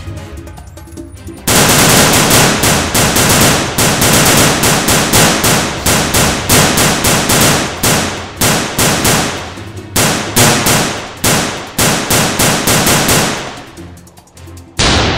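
Rapid automatic gunfire sound effects in long bursts, starting about a second and a half in and breaking off near the end, then one more loud shot just before the end. Background music runs under the gunfire.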